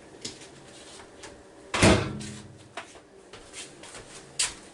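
Microwave oven door shut with one solid knock about two seconds in, then a short low ring. Lighter clicks and knocks of handling come before and after it.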